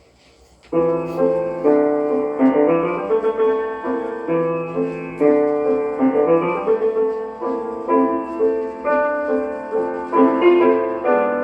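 Music played back from a freshly cut test record on a floppy Lexan disc at 33 rpm. It starts about a second in, after faint surface hiss and a few stylus clicks, and sounds dull, with no high treble.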